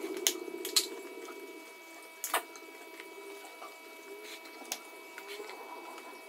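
A few light clicks and taps, the sharpest about two seconds in, over a faint steady hum; a low muffled rustle fades out in the first second or two.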